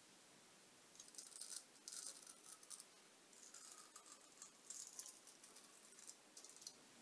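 Straight razor scraping stubble off a lathered upper lip in a series of short, faint, crisp strokes.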